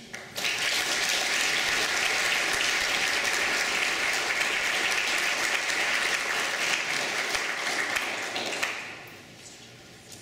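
Audience applauding, starting about half a second in and dying away after about eight seconds.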